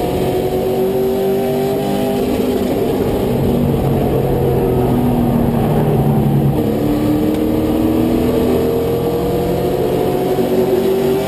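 Race truck's engine at racing speed, heard from inside the cab. The pitch climbs slowly, drops back about six seconds in, then climbs again as the throttle comes back on.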